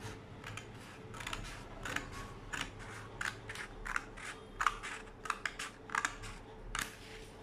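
Scissors cutting through a paper blouse pattern sheet: a steady run of short crisp snips, about three a second.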